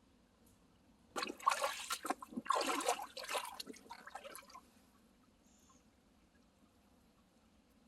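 Water splashing and streaming for about three and a half seconds, starting about a second in, then stopping.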